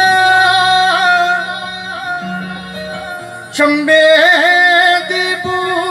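Live Punjabi Sufi-style male vocal through a PA: long held notes with wavering, ornamented pitch, a new note taken up about three and a half seconds in, over a steady keyboard tone.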